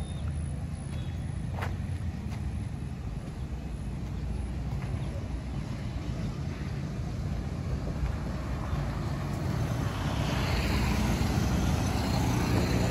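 Roadside traffic: a steady low rumble of distant vehicles, then a motorcycle engine growing louder near the end as it approaches and passes close by.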